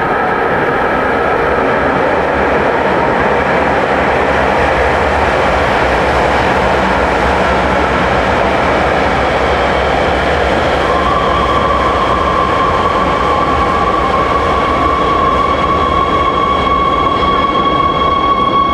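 Hohhot Metro Line 2 train arriving at an underground station behind platform screen doors: a steady loud rumble and rush of running noise. About halfway through, a steady high whine with fainter higher overtones joins in and holds as the train runs along the platform.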